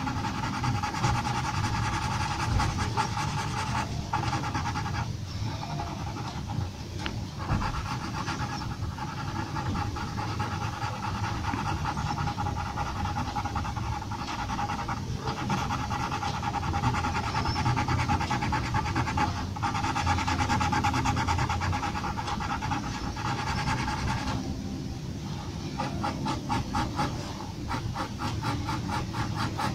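Graphite pencil hatching on drawing paper: a continuous scratchy rasp of quick back-and-forth strokes, broken by a few short pauses where the pencil lifts.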